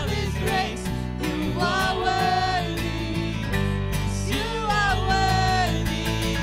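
Live worship band playing a song: voices singing a melody over acoustic and electric guitars and keyboard, with a steady low accompaniment underneath.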